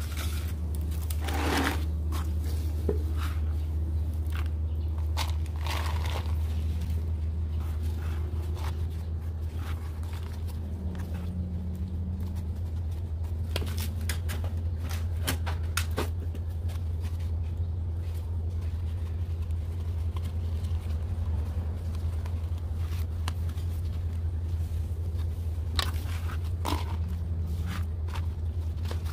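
Soil being scooped by gloved hands from a metal basin and packed into a banana-leaf pot: scattered crunches and scrapes with a few sharp clicks, over a steady low hum.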